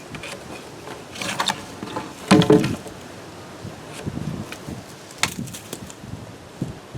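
Wooden 4x4 posts being handled and knocked against each other or set down: a few knocks and clatters, the loudest about two and a half seconds in, and a sharp click a little after five seconds.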